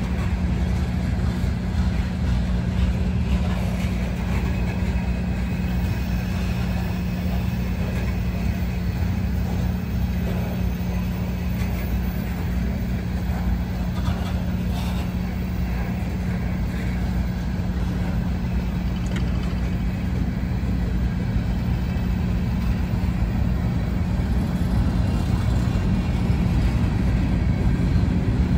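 Freight cars, covered hoppers and then boxcars, rolling past close by: a steady low rumble of steel wheels on rail that grows a little louder near the end.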